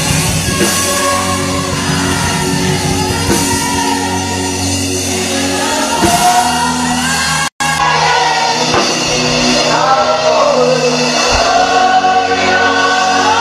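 Congregational gospel worship song: a singer and congregation singing over a live band or keyboard, with a brief cut-out in the audio about halfway through.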